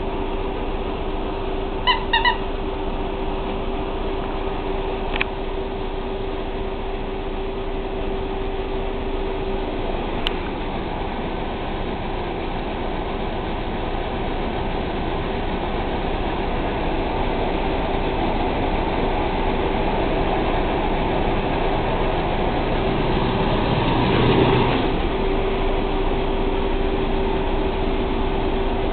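Steady hiss and low hum of background room noise. Three short high-pitched squeaks come close together about two seconds in, with a couple of faint clicks later.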